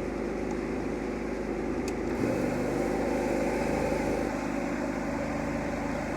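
Brush Pro 10-inch counter-rotating brush machine running on a dry carpet floor mat, a steady motor hum as its brushes agitate and break up dry soil. The hum grows fuller and slightly louder about two seconds in, then settles back a couple of seconds later.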